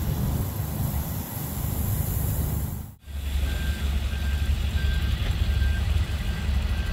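Low rumble of vehicle engines running. After a cut about three seconds in, a vehicle's reverse backup alarm beeps steadily, about one and a half short beeps a second.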